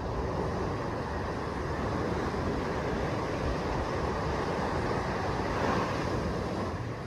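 Small waves breaking and washing up a sandy beach: a steady rush of surf that swells a little near the end.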